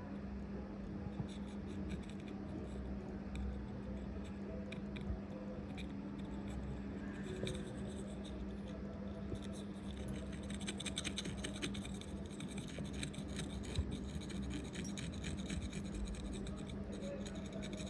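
Fine scraping and ticking of a small tool working on an iPhone logic board, growing busier from about ten seconds in, over a steady low hum.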